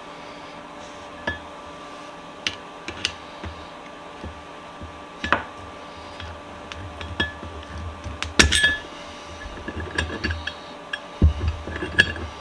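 Metal bench-vise parts clinking and knocking as they are handled and set down: a few separate taps at first, then busier clatter with some duller thumps in the last few seconds, over a steady electrical hum.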